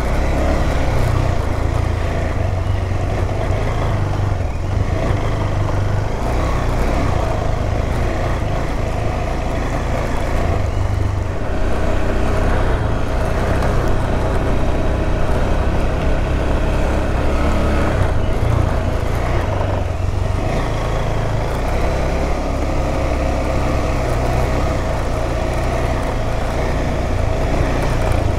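Adventure motorcycle engine running at steady throttle while the bike is ridden along a dirt trail, with a heavy low rumble throughout.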